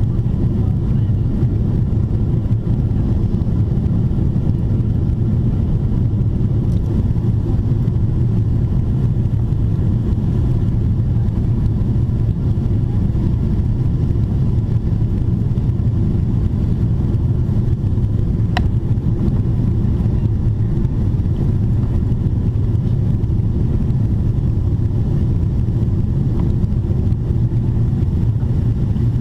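Steady low rumble of engine and airflow noise inside the cabin of a Boeing 777-300ER with GE90-115B engines, descending on approach. A faint steady tone sits over it, and a single brief click comes about two-thirds of the way through.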